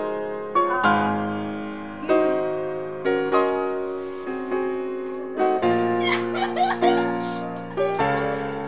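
Background piano music, with notes and chords struck about once a second and left to ring out.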